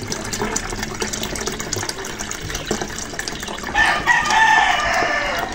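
Seawater poured from a plastic bottle trickles and splashes through a cloth filter into a plastic pitcher. About four seconds in, a long drawn-out call of about a second and a half sounds over the pouring, louder than the water.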